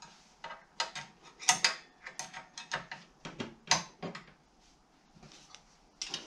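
A metal spanner clicking and scraping on the riving knife's mounting nut and fittings in a table saw's blade slot as the nut is given a final tighten. It makes a string of irregular sharp clicks, goes quieter for a couple of seconds, then gives one more click near the end.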